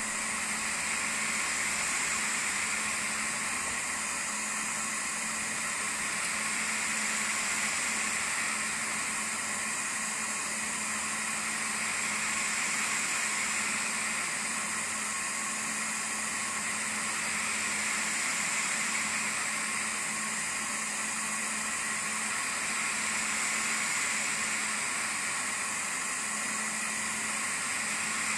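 CNC laser engraver running: a steady whooshing of fans or air with a low hum, swelling and easing about every five to six seconds.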